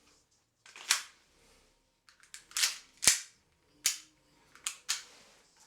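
A series of about six sharp clicks and knocks of hard objects being handled, the sharpest and loudest about three seconds in.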